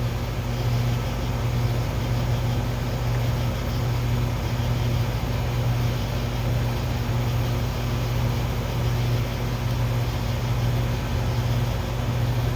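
Home heat pump air conditioner running with a steady, even hum, its fan going. The unit is not cooling and its lines are partly frozen over.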